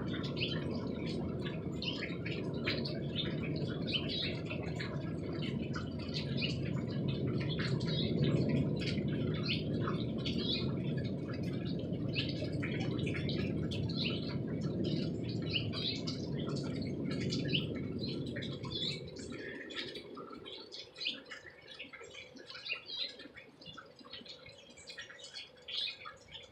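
A steady, loud, low noise of unknown source, which cuts off about two-thirds of the way through. Short high chirps, like small birds, go on throughout.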